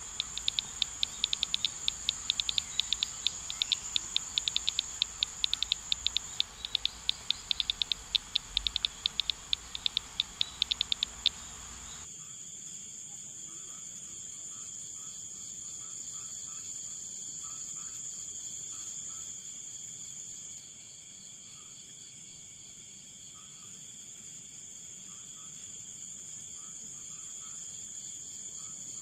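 Crickets chirping in quick pulses over a steady high-pitched drone. The chirping stops abruptly about twelve seconds in, leaving the drone and faint ticking.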